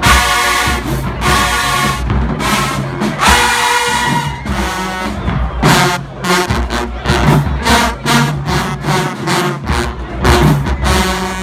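Marching band playing in the stands: brass with sousaphones over drums. Short, loud brass blasts in the first half give way to a steady pounding drum beat under the brass from about halfway through.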